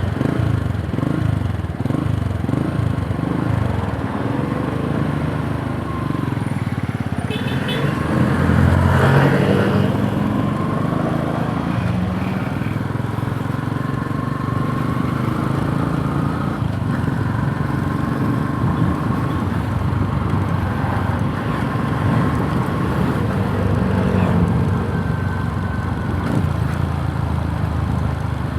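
Yamaha YTX 125's single-cylinder four-stroke engine running under way, its pitch rising and falling with throttle and gear changes. A rush of wind noise swells briefly about eight to ten seconds in.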